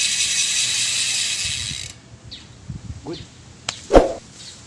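Bicycle rear freewheel hub clicking rapidly as the wheel spins, stopping suddenly about two seconds in. Near the end comes one loud, short sound.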